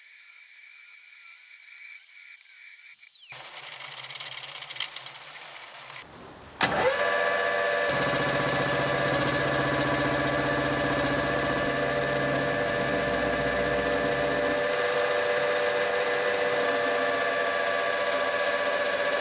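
An angle grinder's cut-off wheel cutting through a 4140 steel bar, a steady high whine. After a break, a metal lathe starts suddenly and runs steadily, a hum with several fixed tones, as it faces the end of the bar; it is louder than the grinder and stops near the end.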